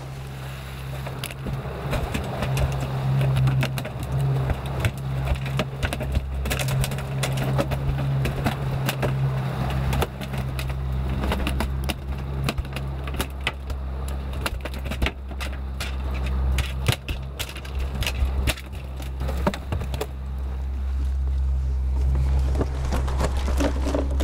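A freshly landed mahi-mahi thrashing on a boat deck and in a fish bag, making many quick, irregular slaps and knocks that die away near the end. The boat's engine runs underneath as a steady low hum.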